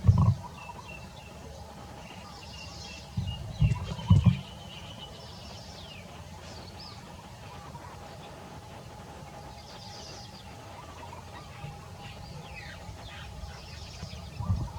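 Small birds chirping, with scattered short calls and quick falling notes. Strong low thumps come in clusters at the start, about four seconds in, and at the very end.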